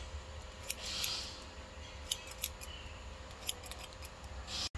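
Barber's scissors snipping through hair close to the ear, a handful of sharp, irregular snips.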